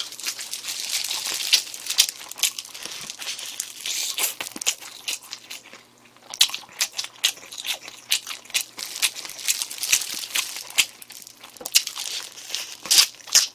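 Crinkling of a disposable plastic glove and foil tray as spicy chicken is picked up, for the first few seconds. Then wet chewing and lip-smacking with sharp clicks as the spicy chicken feet are eaten close to the microphone.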